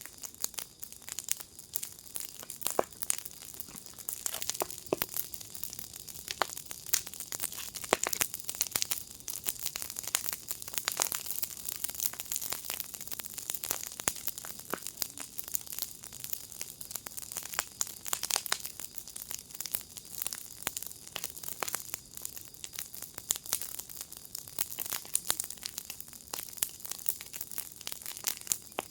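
Wood fire in a fire pit crackling steadily, dense irregular snaps and pops over a soft hiss.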